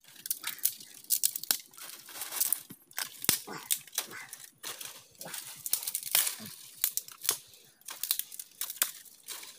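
Dry twigs and brushwood snapping and rustling as they are broken and gathered by hand, an irregular string of sharp cracks.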